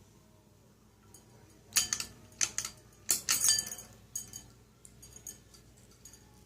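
Ceiling fan's light pull chain jingling and clinking against glass: a burst of sharp clinks with short ringing, starting about two seconds in, then a few lighter clinks.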